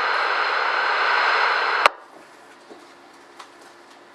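Scanner radio hiss from an open channel carrying no voice. It cuts off with a sharp squelch click about two seconds in, leaving a faint hiss.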